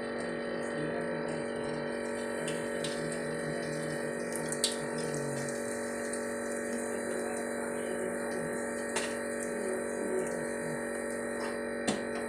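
Battered chicken balls frying in an electric deep fryer: hot oil bubbling and sizzling steadily over a constant hum, with a few sharp clicks.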